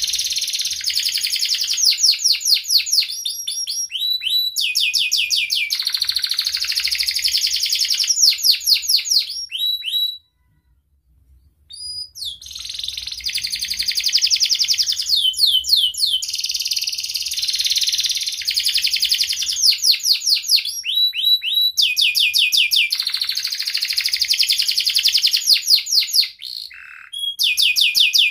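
Domestic canary singing a long song of rapid, high trills and rolls. It falls silent for about two seconds near the middle and breaks off briefly near the end.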